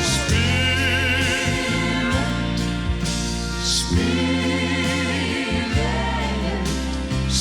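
Gospel choir with band accompaniment: voices holding long, wavering notes over a steady bass line.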